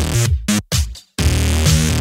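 Electronic music with a deep bass beat and pitched synth phrases, breaking off abruptly into short silences twice.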